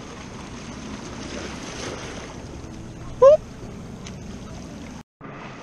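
Small waves washing against jetty rocks, with steady wind on the microphone. About three seconds in, one short, loud rising squeak cuts through.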